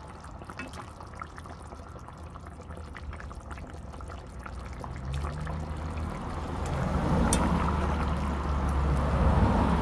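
A metal spoon stirring and lifting pieces in a pot of simmering curry goat, with wet sloshing and bubbling in the thick gravy. It gets louder over the second half.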